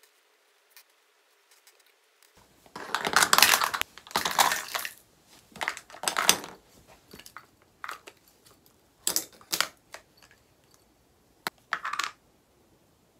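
Makeup being handled and sorted by hand: plastic compacts, palettes and lipstick cases clacking against each other and on the floor, with a fabric pouch rustling, in a series of short bursts starting a couple of seconds in.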